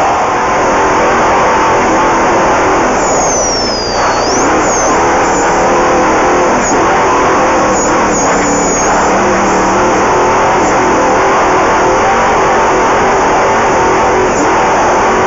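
Off-road race vehicle's engine running hard at speed, loud and steady, heard from on board along with the noise of the vehicle over the ground.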